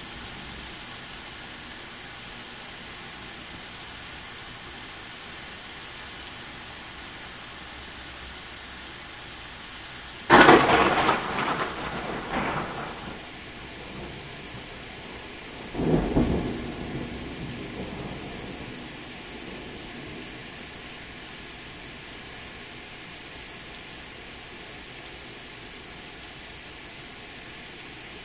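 Steady heavy rain, broken about ten seconds in by a sudden loud thunderclap that crackles and rumbles away over a few seconds, then a second, weaker clap about six seconds later that also rumbles off.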